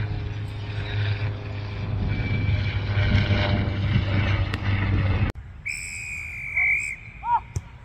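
A steady rumbling noise with a low hum stops suddenly about five seconds in. A single referee's whistle blast lasting about a second follows, then a couple of faint chirps.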